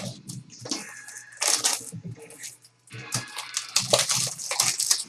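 Plastic packaging crinkling and rustling in irregular bursts as a trading-card pack is unwrapped and its cards handled.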